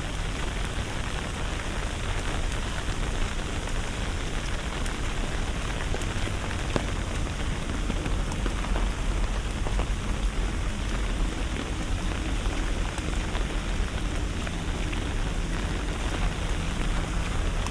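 Steady rain falling on surfaces: an even hiss with scattered small drop ticks.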